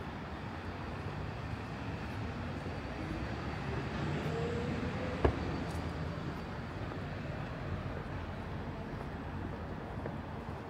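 City street traffic, a steady hum, with one vehicle's engine note rising in pitch as it pulls away or passes about three to five seconds in. A single sharp knock about five seconds in is the loudest sound.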